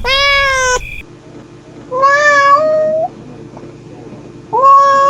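Mother cat meowing three times to call her kittens: drawn-out calls about a second each. The second and third rise in pitch at the end.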